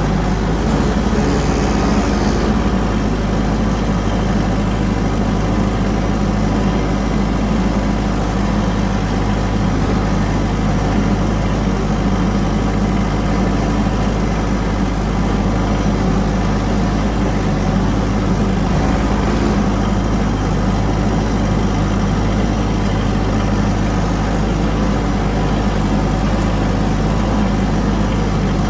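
Engine running steadily at an even speed, with no revving or changes.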